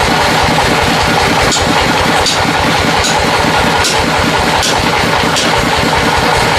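Engine running steadily with a fast low pulsing, and a short sharp tick about every three-quarters of a second.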